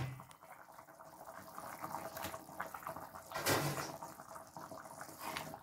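Pot of curry chicken bubbling at a simmer, a faint steady crackle of popping bubbles, with one brief louder noise about three and a half seconds in.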